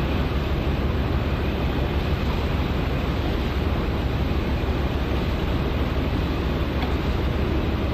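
Steady low rumble with a hiss of wind and sea noise over it, as on a vessel at sea.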